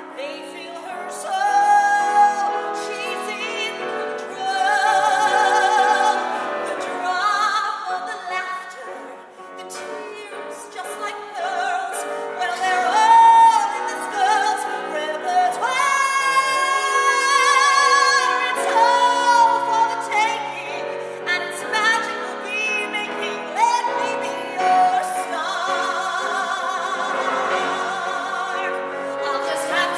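A woman singing a musical-theatre ballad live, holding long notes with vibrato, her voice rising and falling through the phrases.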